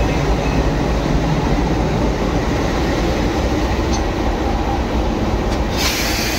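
Diesel locomotive engine running steadily at low speed, around 400 RPM, during a load test. A loud hiss starts near the end.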